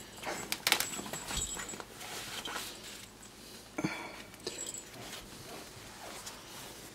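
A young Pembroke Welsh Corgi puppy moving about on a fabric sheet: soft, scattered scratches, pats and rustles of small paws and cloth, with a couple of sharper clicks.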